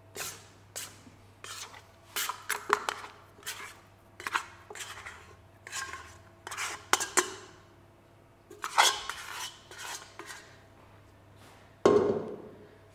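Irregular clinks, knocks and scrapes on a stainless-steel stand-mixer bowl as soft bread dough is scraped out into an oiled dough tub, with a louder knock near the end.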